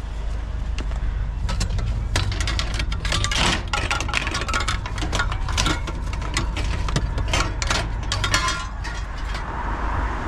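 Rummaging through a curbside junk pile: a long run of irregular clattering and knocking as items are moved about, over a steady low rumble.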